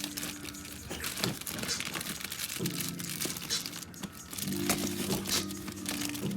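Packaging crinkling and rustling as purchased items are handled and unwrapped, in many quick irregular crackles, over low steady tones in the background.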